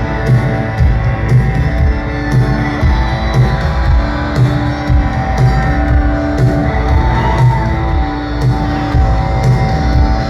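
Rock band playing loud live: drums and bass pounding a steady beat under long held notes.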